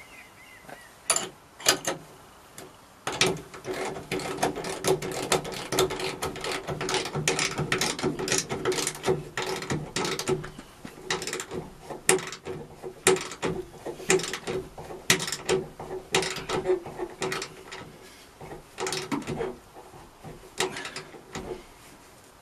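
Ratcheting spanner clicking in rapid runs as bolts are tightened on a van's rear door. A few separate clicks come about a second in, then the runs go on almost without a break until near the end.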